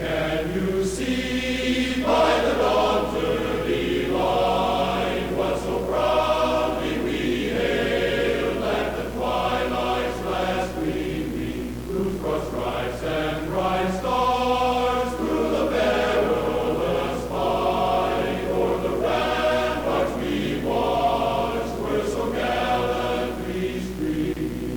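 Choir music: voices singing in repeated phrases over a steady low drone.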